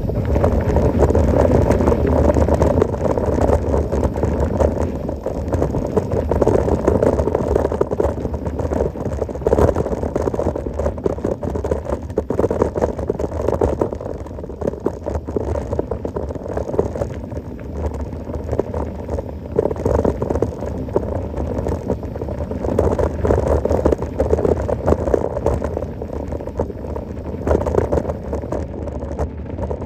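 Mountain bike ridden over a rough trail: a steady rumble of tyres on the ground with constant rattling from the bike.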